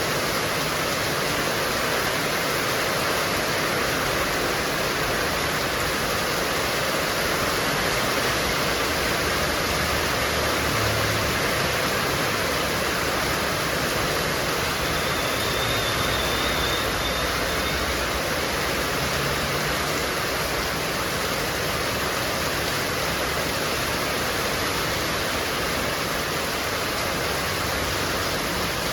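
Heavy rain pouring steadily with strong wind.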